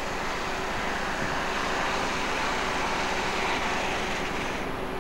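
A steady rushing noise that swells slightly and then loses its hissing top near the end.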